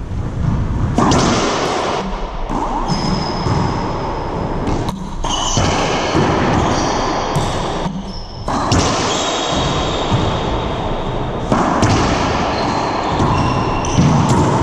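Racquetball rally: repeated sharp pops of the hollow rubber ball off racquets and the walls, echoing in the enclosed court, with short high squeaks of sneakers on the hardwood floor.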